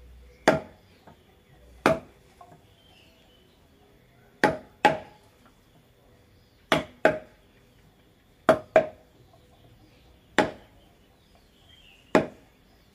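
Wooden mallet striking a carving chisel into the wood of a barong mask being carved: about ten sharp knocks at uneven intervals, several in quick pairs.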